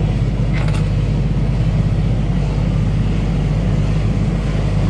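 Sailboat's inboard engine running steadily under way, a constant low drone.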